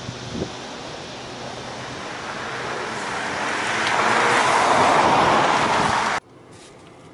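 2017 Audi A4 2.0T quattro sedan driving toward and past on asphalt: a rush of tyre and engine noise that grows louder over about four seconds, then cuts off suddenly about six seconds in.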